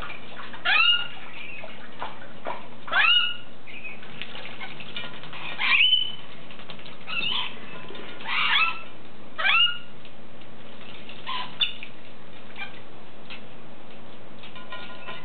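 Pet parrot giving short calls that sweep upward in pitch, about eight of them a second or two apart.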